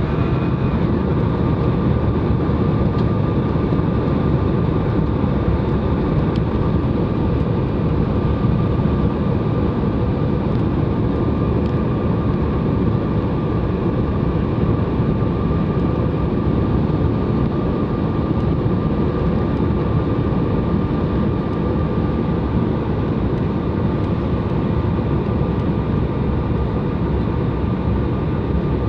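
Airliner cabin noise in flight on approach: a steady engine and airflow rumble with a constant high tone over it, even throughout.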